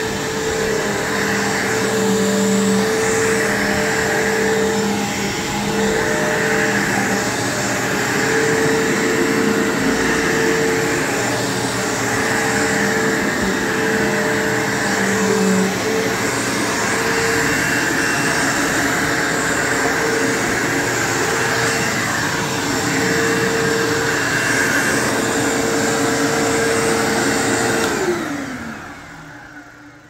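Bissell PowerForce bagged upright vacuum cleaner running steadily while pushed back and forth over carpet. Its motor is switched off about two seconds before the end and winds down, the whine falling in pitch as it fades.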